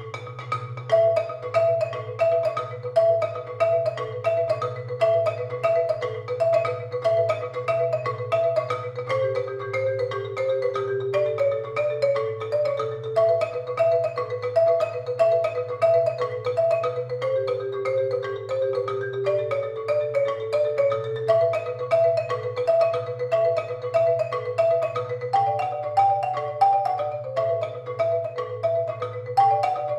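Two marimbas played with mallets by four players: a repeating pattern of short interlocking notes over a steady low pulse, the figure shifting to new notes every few seconds.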